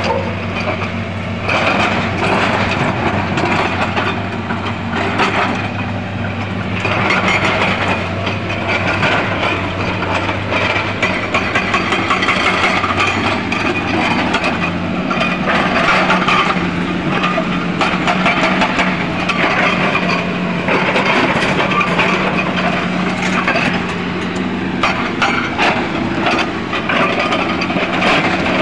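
Hydraulic rock breaker on a Tata Hitachi Zaxis 210 excavator hammering rock in rapid blows, in runs of several seconds with short pauses, over the steady running of the excavator's diesel engine.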